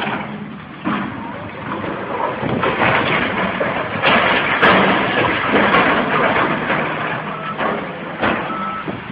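Heavy machinery running, its engine hum under loud, dense mechanical noise that shifts abruptly about a second in, about four seconds in and again near the end.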